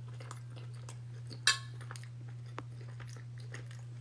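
Chewing with small mouth clicks, and about a second and a half in a single sharp clink of a metal spoon against a glass baking dish, the loudest sound. A steady low hum runs underneath.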